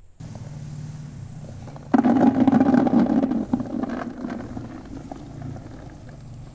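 Cornelian cherries pouring from a metal colander into a plastic bucket: a loud rush of berries drumming onto the bucket begins suddenly about two seconds in and thins out over the next few seconds, over a steady low hum.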